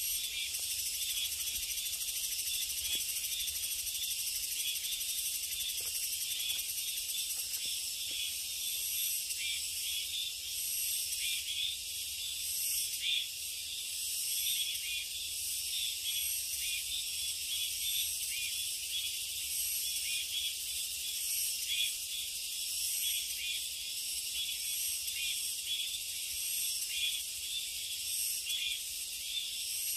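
A dense chorus of summer insects: continuous high-pitched shrilling in several layered pitches, with a fine, fast pulsing.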